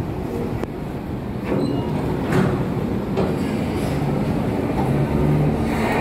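Steady low rumble of a berthed passenger ship's machinery, with a few short knocks scattered through it.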